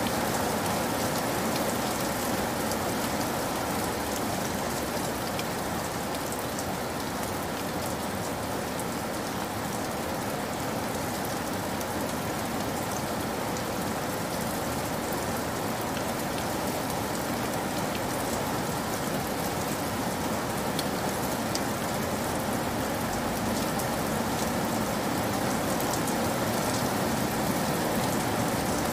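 Heavy rain falling steadily onto wet ground, a dense even hiss with individual drops splashing through it.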